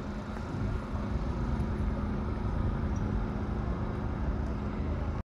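Street ambience: a steady low rumble of road traffic that cuts off suddenly near the end.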